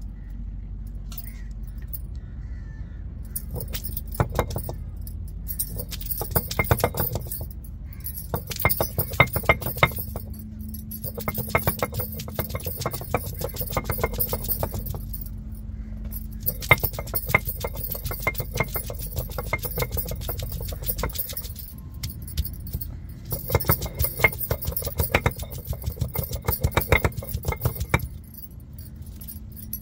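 Bangles jingling in repeated bouts of a few seconds as both hands rock a stone roller back and forth on an ammi, a flat grinding stone, grinding ginger and garlic into paste, with the stone grating underneath.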